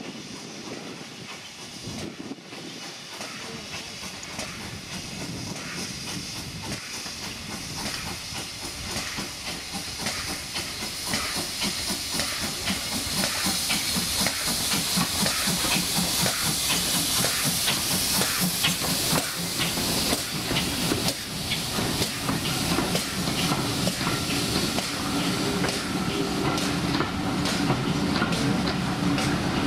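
GWR 2800 class 2-8-0 steam locomotive No. 2857 pulling away with a train of coaches. Its exhaust beats mix with a loud hiss of steam from the open cylinder drain cocks, and the sound grows louder as the engine draws near. Near the end the coaches roll past.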